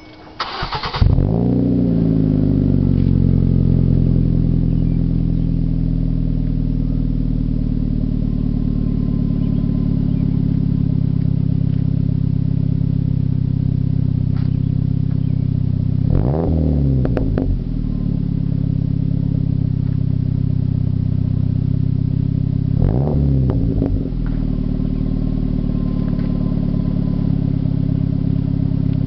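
A 2008 Ford Focus four-cylinder engine with an aftermarket race exhaust is started: a brief crank about a second in, then it catches, its pitch dropping as it settles into a steady idle. About two-thirds of the way through and again near the end, it gets two short, light revs, each rising and falling back to idle within about a second.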